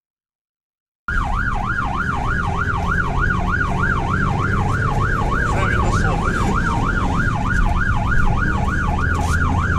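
A fire engine's electronic siren on a fast yelp, about three rising-and-falling wails a second, heard from inside the cab over the truck's engine and road rumble while driving on an emergency call. It starts about a second in, after a short silent gap.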